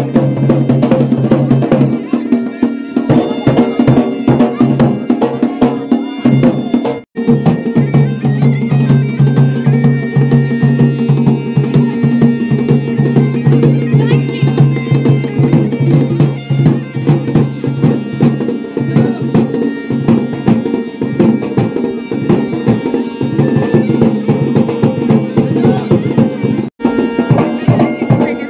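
Garhwali wedding band: a masakbeen bagpipe playing a melody over its steady drone, with dhol and damau drums beating along. The sound cuts out for an instant twice.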